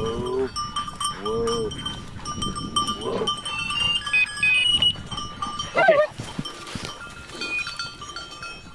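Bird-dog collar bells ringing and jingling in irregular bursts as the dogs move through the brush.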